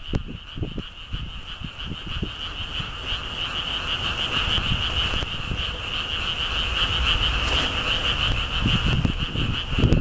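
A chorus of frogs calling in one continuous high-pitched, pulsing chorus that swells through the middle. Under it, strong gusting wind buffets the microphone, with the heaviest gusts near the end.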